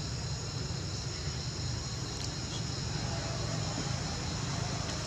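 Steady outdoor ambience: insects trilling in high, even tones over a low steady rumble.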